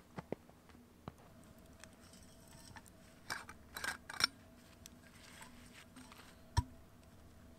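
Quiet handling noises by a campfire: a few scattered clicks, a cluster of crisp scraping and snipping sounds around the middle, and one dull thump near the end.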